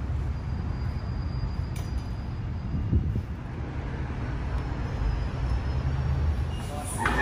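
Low, uneven outdoor rumble of street traffic and wind on the phone microphone. Near the end, music and voices from inside the restaurant cut in suddenly.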